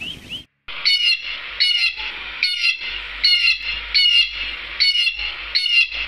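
Ducks calling: after a few quick high calls and a brief dropout, a loud call comes at a steady pace about every 0.8 seconds, seven times.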